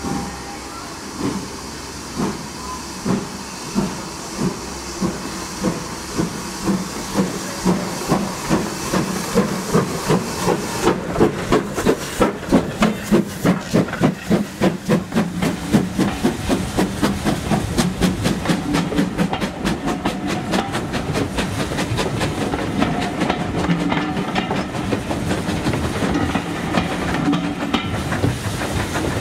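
GWR 4575 class small prairie tank engine 5572, running as L150, starting its train away. Its exhaust beats begin about one a second and quicken to a rapid, even beat, over hissing steam; later the coaches roll past with wheels clicking over the rail joints.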